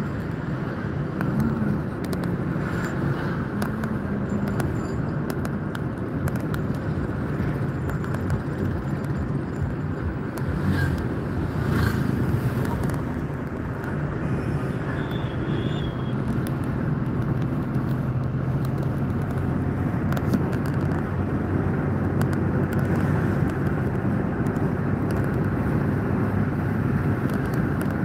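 A car driving steadily, heard from inside the cabin: a low engine hum under a steady rush of tyre and road noise.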